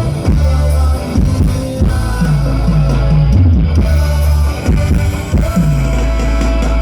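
Live band playing: drums, bass and electric guitar with a steady beat, loud and full, with no singing clearly present.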